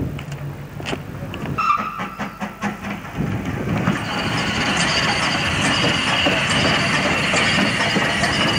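Steam locomotive No. 4, a 2-6-4 tank engine, heard at close range. A low rumble and a run of clicks and knocks come first, then from about four seconds in a steady hissing noise.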